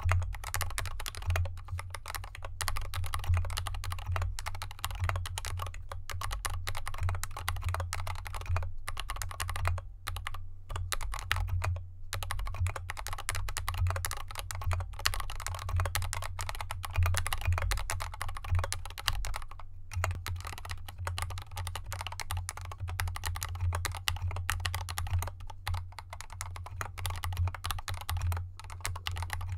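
Continuous fast typing on a GK64X mechanical keyboard with lubed Gateron Yellow linear switches and SA-profile keycaps in a foam-damped aluminium case set on felt fabric, a dense stream of keystroke clacks with a brief pause about two-thirds through. A steady low hum lies under it.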